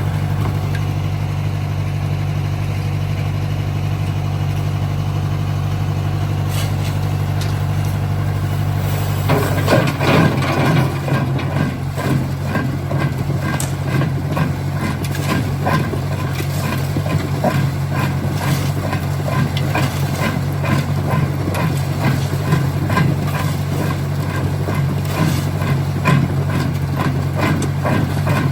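Jaw crusher stone-crushing plant running, with a steady engine hum. From about ten seconds in, a dense, irregular clatter of rock knocking and cracking joins it as stone is crushed.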